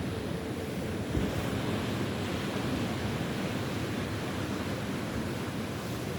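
Ocean surf washing on the shore, swelling as a wave breaks about a second in.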